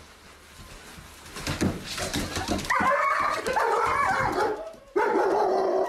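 A dog yelping and whining in high, wavering cries from about three seconds in, after a stretch of thumps and scrabbling.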